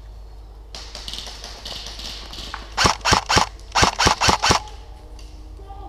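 A suppressed airsoft electric rifle firing single shots, three in quick succession and then, after a short pause, four more. The shots come in the middle of the stretch.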